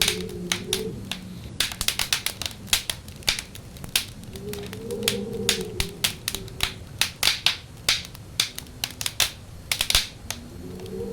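Wood fire crackling with many sharp pops and snaps, under a whistling wind howl that wavers up and down in pitch, swelling near the start, around the middle and again at the end.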